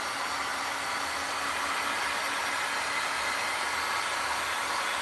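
Handheld electric heat gun running steadily, blowing air across wet poured resin to spread it, with a faint steady hum under its even rush of air.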